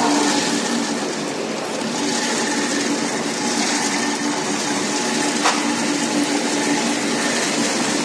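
Grape washing machine running: its motor-driven screw conveyor turns in the water trough, a steady hum under a wide watery hiss, while raisins pour from a plastic crate into the steel hopper. A single sharp knock about five and a half seconds in.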